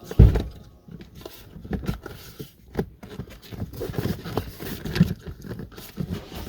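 Irregular clicks, knocks and light scraping of plastic interior trim and push clips being handled and fitted under the dashboard, with a sharper knock just after the start.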